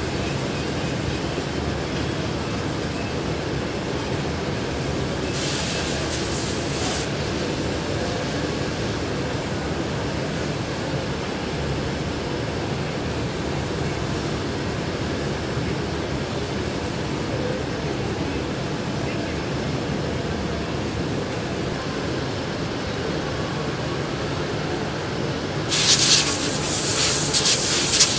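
Steady workshop hum, broken by two spells of loud hissing from a compressed-air hand tool on a blue air hose. The first comes about five seconds in and lasts under two seconds; the second, the loudest sound, comes near the end.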